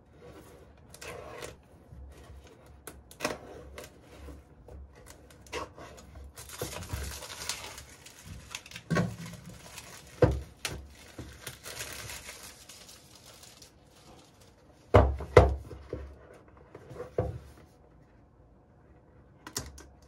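Plastic shrink-wrap being slit with a utility knife and pulled off a small cardboard thermostat box: scraping, then several seconds of steady crinkling and tearing of the film. A couple of loud knocks from the box being handled come about halfway through.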